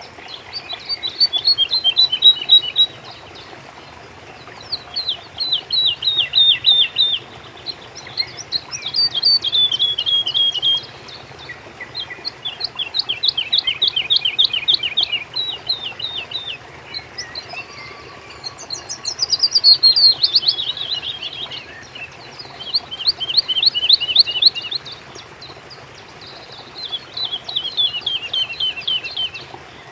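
A songbird singing about seven phrases with short pauses between them. Each phrase is a fast run of high, quick notes that drifts slightly down in pitch, over a faint steady background hiss.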